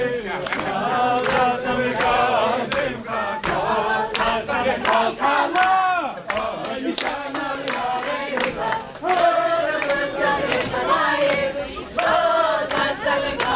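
A crowd of wedding guests, mostly men's voices, singing a dance song together, with rhythmic handclaps through it.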